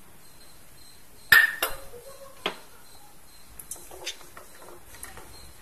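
Wooden spatula tapping and scraping against a metal kadai while stirring mustard seeds in hot oil that have not yet started to splutter. A handful of separate clicks; the first and loudest, about a second in, has a short metallic ring.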